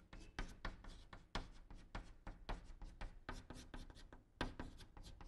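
Chalk writing on a blackboard, faint: a quick, irregular run of short taps and scratches as Chinese characters are written stroke by stroke.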